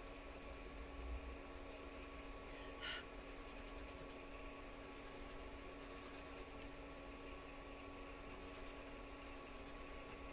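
Fingertips rubbing soft pastel into paper to blend the swatches: a faint, scratchy rubbing in repeated strokes over a faint steady hum. There is one short sharp sound about three seconds in.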